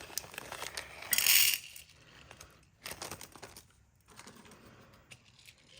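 Small beads clicking and clattering as they are handled and tipped into a bead tray, with a brief louder rattle about a second in and a few scattered clicks afterwards.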